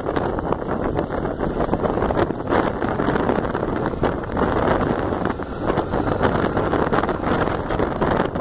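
Motorcycle running along at riding speed, its engine mostly covered by heavy wind buffeting on the microphone.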